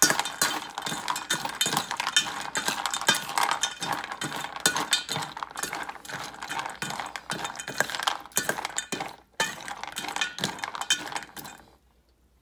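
A metal spoon stirring dry dog kibble with a little hot water in a stainless steel bowl: quick, irregular clinking and scraping of kibble against the steel, stopping shortly before the end.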